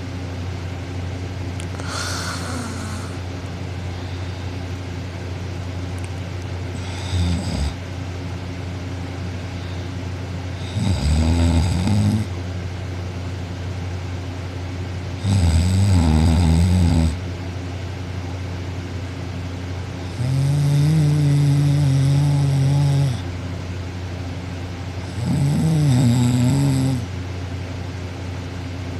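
A girl asleep on her back, snoring loudly: about five snores, each one to three seconds long and about four to five seconds apart, the first faint, some wavering in pitch and one held on a steady tone.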